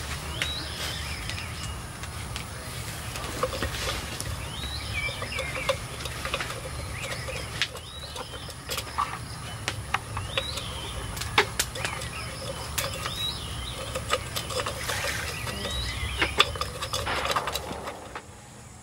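Clay pots clinking and knocking as they are set in place on a stone stove, with birds calling repeatedly in short curved notes. The sound drops in level near the end.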